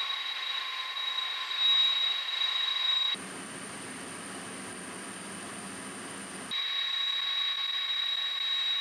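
Turbofan engines of large jet aircraft running at ground idle with a steady high whine. About three seconds in, it cuts to a different jet sound, a higher whistle over a low rumble. A few seconds later it cuts back to the first whine.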